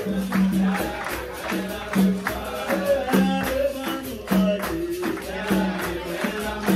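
Capoeira roda music: the bateria's berimbaus, pandeiro and atabaque drum play a steady repeating rhythm, with hand clapping and singing over it.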